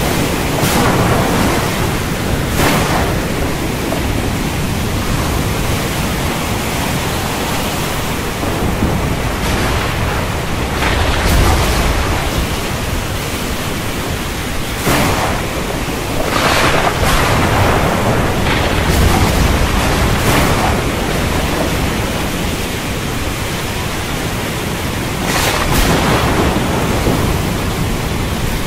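Heavy thunderstorm: a steady hiss of rain with thunder, including low rumbling swells about eleven and nineteen seconds in and sharper cracks scattered throughout.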